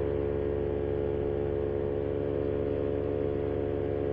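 Moster 185 single-cylinder two-stroke paramotor engine running at steady cruise power, a constant drone with no change in pitch. Its propeller is damaged after a repair failed in flight, and the pilot says it is sounding terrible.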